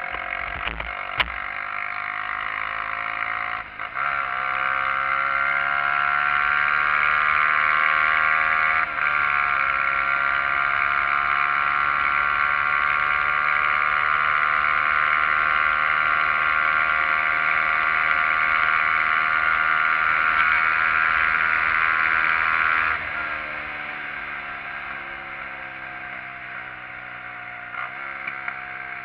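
SYM XS125-K motorcycle's single-cylinder engine running under way, with wind rush. The note breaks briefly about 4 and 9 seconds in, as on gear changes, then holds steady. About 23 seconds in it drops in level and the revs fall slowly as the throttle is rolled off.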